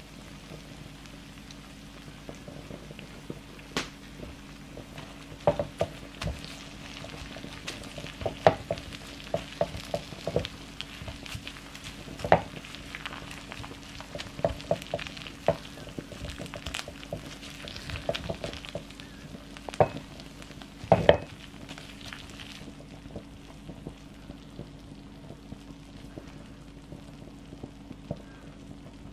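Kimchi fried rice sizzling on a hot grill plate as a plastic slotted spatula stirs and scrapes it, with repeated scrapes and taps against the pan. The loudest cluster comes shortly before the sizzle drops away, well before the end.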